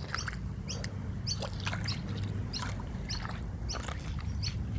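A small bird chirping over and over, short high chirps two or three times a second, over a steady low rumble.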